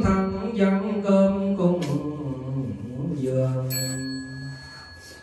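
A Buddhist monk chanting a Vietnamese liturgy through a microphone in long, held notes that fade out near the end. A bell is struck once about three and a half seconds in and keeps ringing.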